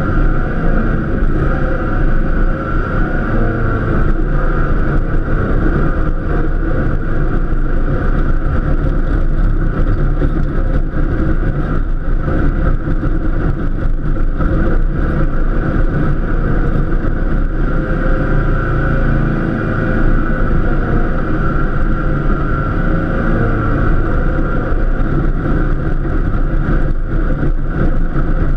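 Cub Cadet LTX1050 KW lawn tractor's engine running steadily under load while plowing snow.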